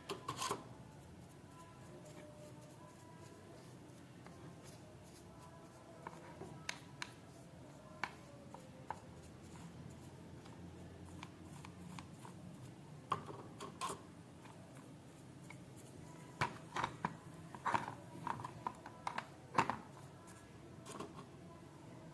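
Scattered light clicks and metal-on-metal taps with a short ring, bunched into a few clusters over a faint low hum: the metal parts of a pair of garden shears being handled and set down.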